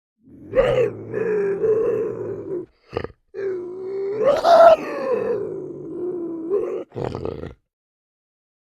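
Bobcat calling: a long wavering call, a short grunt about three seconds in, then a second long call that rises in pitch about four and a half seconds in, and a brief call near the end.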